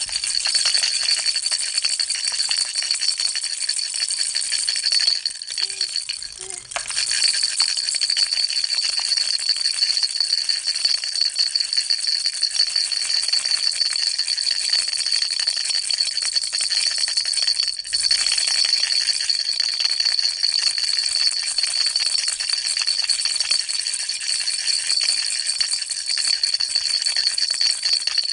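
Baby rattle shaken continuously in a fast, dense rattle, with a steady high ringing tone running through it. The shaking dips briefly about six seconds in and again near eighteen seconds.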